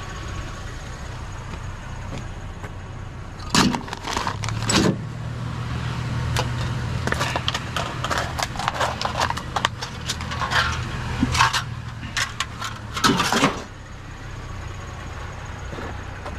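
Small pieces of scrap metal and plastic clattering and rattling as they are rummaged through by hand, with sharp clanks and jangles, loudest about four seconds in and again near the end. A low engine hum runs underneath through the middle.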